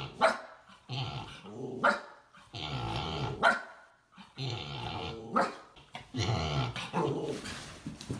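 A dog barking and growling in about five bouts, roughly one every second and a half. Each bout is a sharp bark followed by a drawn-out growly grumble, the dog upset and trying to rouse another dog that won't wake.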